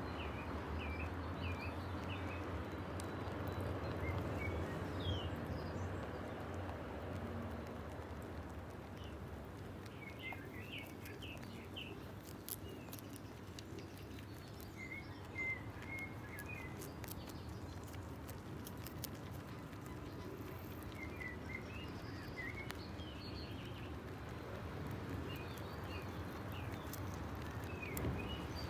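Small birds chirping in short phrases against steady outdoor background noise, with faint crisp clicks from rabbits nibbling fresh dandelion flowers.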